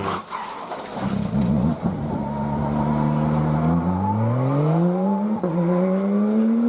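Hillclimb race car engine accelerating up through the gears: the pitch wavers at first, holds, then climbs steadily from about four seconds in, with a brief drop at an upshift a little after five seconds before it climbs again.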